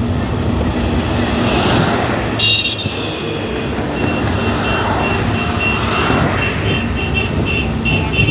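Steady rumble of a train running across a long bridge, heard at an open coach window. A road vehicle rushes past about two seconds in. From about four seconds on there is rapid high beeping, about three beeps a second, from a passing ambulance's siren.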